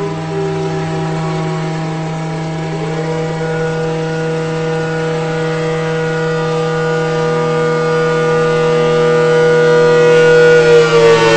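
Outdoor warning siren wailing: its pitch dips slightly, rises about three seconds in to a high tone held steady for several seconds, and starts to fall again near the end. A steady low hum sits underneath, and the siren grows slowly louder.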